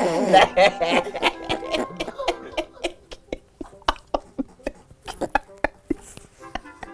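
Men laughing, loudest over the first second, then trailing off into short bursts of chuckling, with music underneath.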